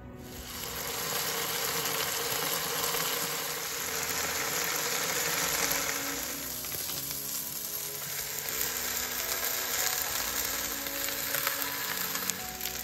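Chicken and vegetables frying in a hot wok: a steady, dense sizzle and crackle of oil.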